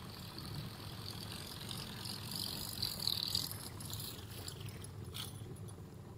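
Shimano Scorpion DC baitcasting reel cranked steadily, its gears whirring as a buzzbait is retrieved across the water surface.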